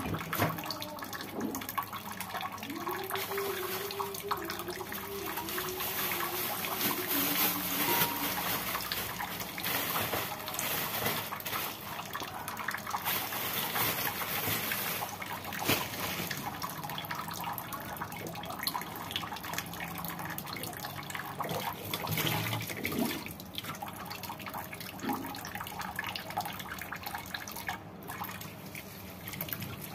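Water running steadily from a kitchen tap, splashing and trickling as vegetables are washed.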